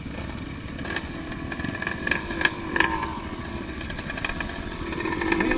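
Trail motorcycle engine running while riding a dirt track, with a few sharp knocks about two to three seconds in and the engine pulling harder near the end.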